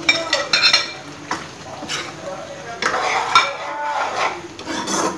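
Sliced okra tipped from a plate into a nonstick wok of yogurt masala, then stirred with a long metal spoon that scrapes and knocks against the pan. There are sharp clicks and scrapes in the first second and a longer run of stirring strokes from about three seconds in.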